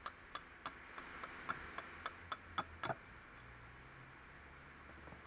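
Hammer tapping a steel punch to drive a shaft out of an LT230 transfer case: a steady run of light metal taps, about three a second, ending with two harder strikes about three seconds in.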